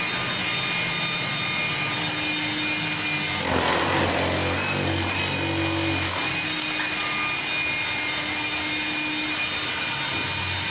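Hilti TE 800-AVR electric demolition hammer with a pointed chisel bit running and chipping plaster and concrete out of a wall. It is a little louder for a couple of seconds near the middle.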